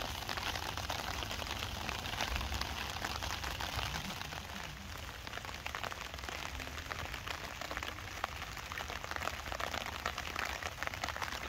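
Rain falling on a tarp and the foliage around it: a steady, dense patter of many small drop hits.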